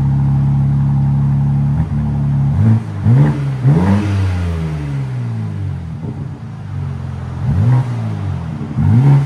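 2023 BMW M4 Competition's 3.0-litre twin-turbo inline-six through the stock exhaust with its valves open, running steadily, then revved in short blips: three in quick succession about three seconds in and two more near the end, each rising and falling in pitch.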